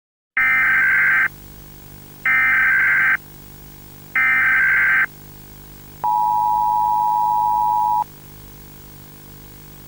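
Emergency Alert System tones: three bursts of SAME header data, about a second each and a second apart, then the two-tone attention signal held for about two seconds, over a low steady hum.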